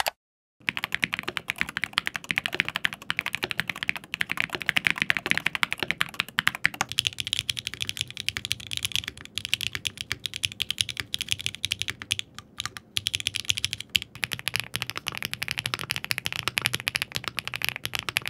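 Fast typing on mechanical keyboards, played one after another, with dense rapid key clacks. The sound changes about 7 seconds in and again about 14 seconds in as the keyboard changes. The keyboards include a Frog Mini fitted with Venom MX and Rapter MX Extreme switches, and a Rainy 75.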